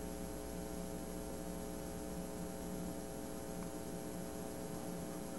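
Steady electrical hum of several tones over an even hiss: the recording's own background noise, with no other sound.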